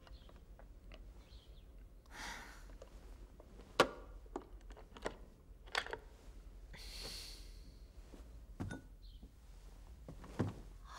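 Quiet handling sounds: a few light, separate knocks and clicks as a lacquered wooden box is opened and small things are set down on a table, with soft rustling between them.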